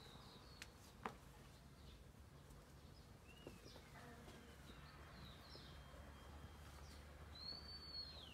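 Near silence with faint bird chirps here and there. The clearest, a short arching chirp, comes near the end. A single faint click comes about a second in.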